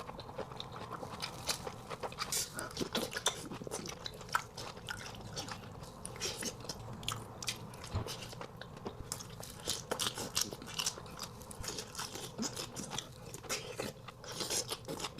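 Close-miked eating sounds: chewing and biting shrimp and egg from a seafood boil, with many quick wet mouth clicks throughout.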